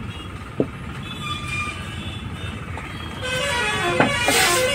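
Road traffic with vehicle horns honking, louder in the last second or two. Two short, sharp knocks, one about half a second in and one near four seconds.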